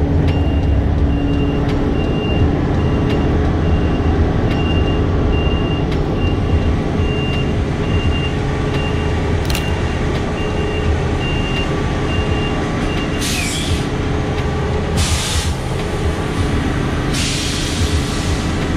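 Busy city street traffic with heavy vehicles' engines running. A high beep repeats about one and a half times a second through the first two-thirds, then three short hisses of air from heavy-vehicle air brakes come near the end.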